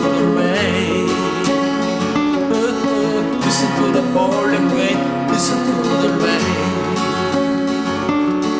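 Acoustic guitar strumming chords with a picked melody line, the instrumental close of a slow pop ballad.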